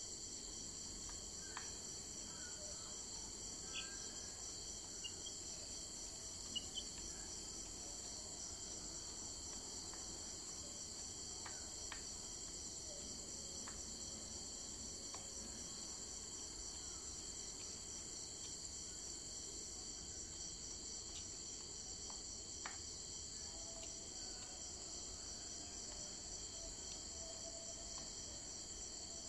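Steady chorus of insects, a high, finely pulsing trill that never lets up, with a few faint short ticks scattered through it.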